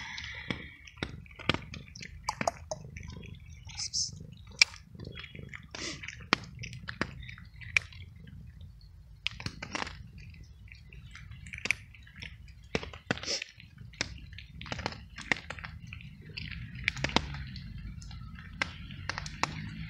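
Tabby cat crunching dry kibble: many short, irregular crunches as it chews.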